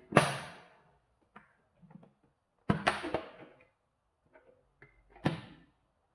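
Hard plastic parts of a cordless stick vacuum clicking and knocking as they are handled, with no motor running. There are three louder knocks a little under three seconds apart, the middle one doubled, and light taps between them.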